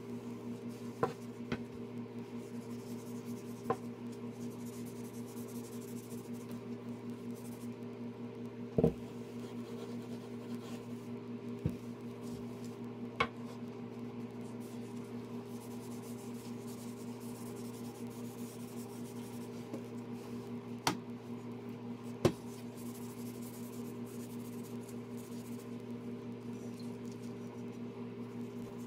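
A steady low hum, with a few scattered light knocks and taps and faint rubbing as a wooden walking stick is handled and dabbed with a paint-soaked sponge.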